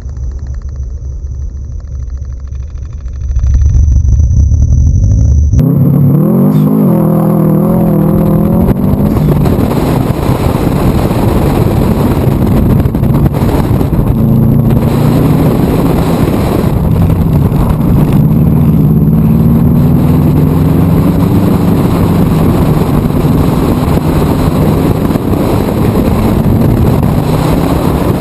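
Subaru WRX's turbocharged 2.0-litre flat-four engine, first running low, then launching hard a few seconds in. It revs up and down through the gears on a dirt rallycross course, with a steady rush of wind and gravel under it.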